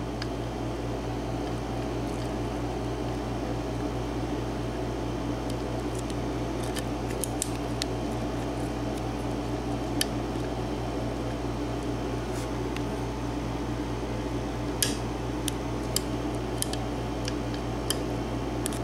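Lock pick and tension wrench working the pins of a Sargent cylinder lock: scattered faint metallic clicks and ticks while pin 1 has not yet set. A small air conditioner hums steadily underneath.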